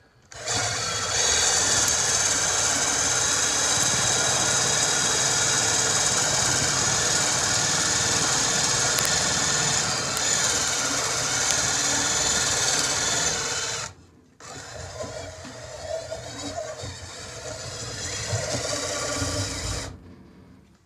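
Electric drill spinning a hickory dowel through a rod-cutting die, the motor running as the die shaves the hard wood with a steady rasping scrape. It stops briefly about two-thirds of the way through, runs again more quietly, then stops near the end.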